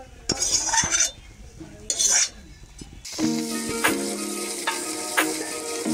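A metal spoon scraping cooked greens out of an aluminium kadhai into a plate, twice. After about three seconds, hot oil sizzling with green chillies and garlic frying in the kadhai, under background music with a steady beat.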